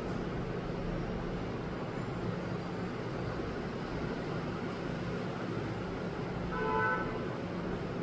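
Steady low hum and hiss of background noise, with a short pitched tone lasting about half a second about six and a half seconds in.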